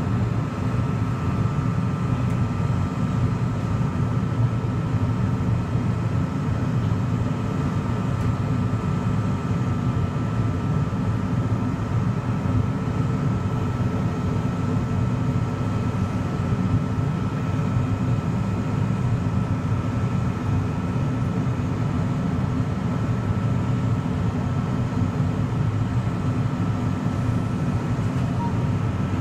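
New Jersey Transit multilevel commuter train standing at the platform, its locomotive and cars giving off a low, steady hum with a thin, steady whine above it.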